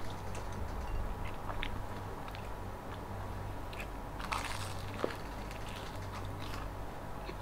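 Close-up crunching bites and chewing of crispy deep-fried dynamite lumpia (chili-stuffed spring rolls): scattered crackles, with the loudest crunch about four seconds in.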